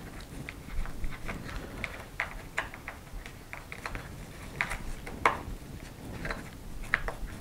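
Light, irregular clicks and scrapes of a KST X08H micro wing servo being worked by hand into its plastic servo frame, wiggled back and forth to seat its output on the splined IDS hub. The sharpest click comes about five seconds in.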